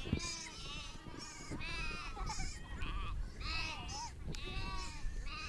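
A flock of sheep bleating: several animals calling one after another and overlapping, each wavering bleat lasting about half a second.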